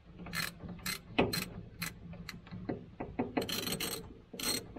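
Socket ratchet wrench clicking in short, irregular strokes while backing out a bolt with a 7/16 socket, with two longer runs of clicks in the second half.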